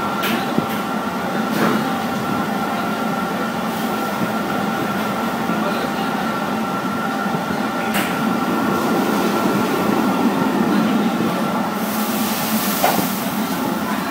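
Steady mechanical hum and hiss with a faint high whine, broken by a few light clicks and a brief rustle near the end.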